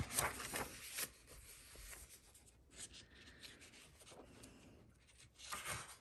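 Paper pages of a paperback colouring book rustling and sliding as they are turned by hand, faint, with a louder rustle near the end.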